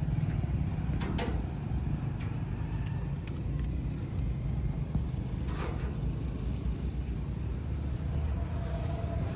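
Steady low rumble of roadside traffic, with a few light knocks as a knife cuts raw meat on a wooden chopping block, the clearest about halfway through.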